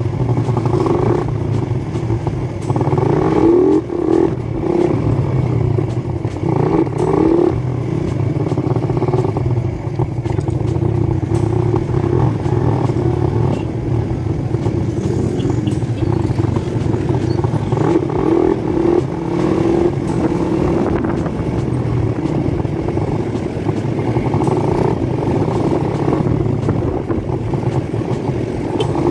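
Motorcycle engine running steadily while riding in traffic, heard from on the bike. Its pitch rises and falls slightly a few times as it speeds up and eases off.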